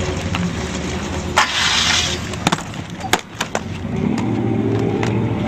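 Inline skate wheels rolling over pavement in a steady rumble, with a brief hiss about a second and a half in and several sharp clacks of skates hitting the ground around the middle.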